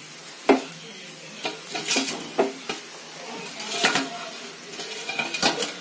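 Slotted metal spatula tossing and stirring noodles in a metal pan, knocking and scraping against the pan in about half a dozen irregular strokes.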